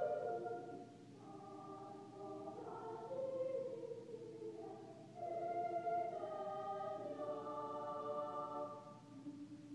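A school girls' choir singing held chords in phrases that swell and fade, with a low held note near the end.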